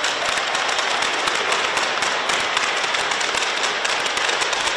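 Spectators applauding: dense, steady hand-clapping that swells up as the rally ends.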